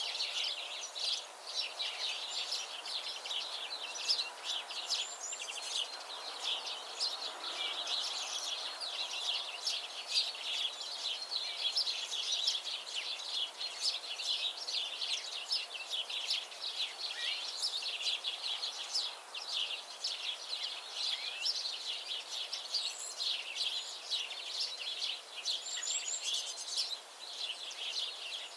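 Many small birds chirping at once: a dense, continuous chorus of short high chirps and trills with no pause.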